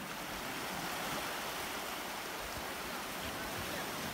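Sea surf washing and breaking against boulders in a steady, even rush.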